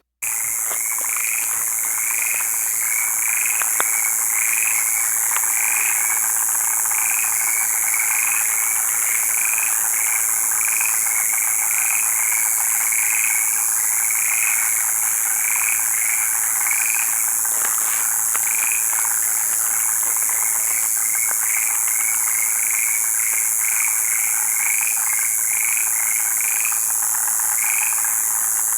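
Frogs calling in a chorus: short croaks repeated about twice a second over a steady high-pitched hiss.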